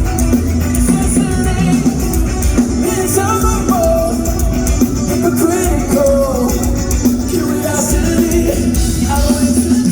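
Live rock band playing a song loudly, with drums, bass and guitars.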